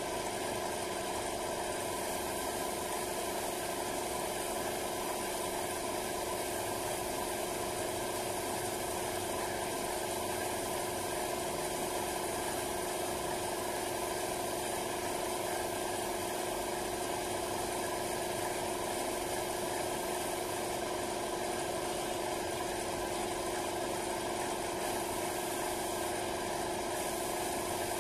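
Air compressor running steadily with a constant hum, supplying a paint spray gun.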